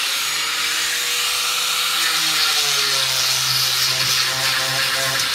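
Makita electric grinder running at speed, grinding the planer ridges off a burled maple slab: a steady motor whine under the loud hiss of the abrasive on the wood. The whine's pitch drops a little about halfway through as the grinder bears down.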